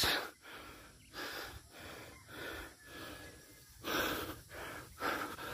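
A person breathing hard into the phone's microphone, a run of short noisy breaths about once a second, the loudest about four seconds in: out of breath after climbing uphill.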